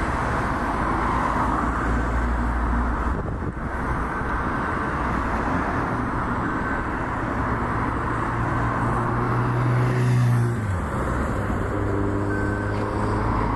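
Highway traffic: a steady wash of tyre and engine noise from passing cars and trucks. One vehicle's engine grows louder and then drops in pitch as it passes, about ten seconds in.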